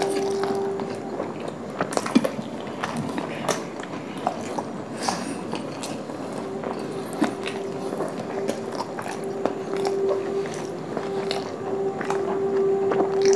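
Close-up chewing of a huge mouthful of rumali roti soaked in dal makhni: soft wet chewing with scattered sharp mouth clicks. Faint background music with held notes plays underneath, a little louder in the second half.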